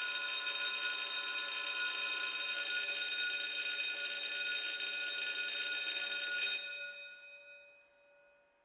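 An alarm bell ringing steadily, then stopping about six and a half seconds in and dying away over the next second.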